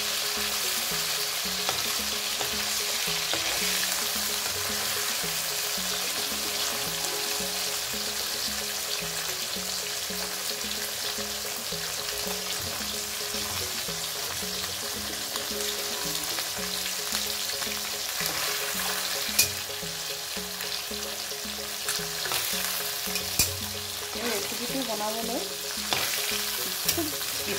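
Bhangon fish frying in hot oil in a kadai, a steady sizzling hiss. A metal spatula turning the pieces clicks against the pan a few times in the second half.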